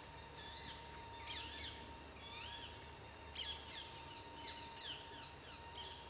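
Small forest songbirds calling: quick, short whistled notes and warbles that sweep up and down in pitch, in several clusters.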